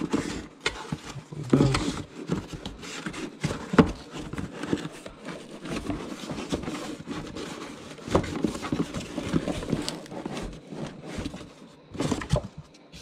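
Cardboard box being forced shut by hand: irregular scraping and rubbing of cardboard, with scattered knocks and taps as the box and its contents are pushed about.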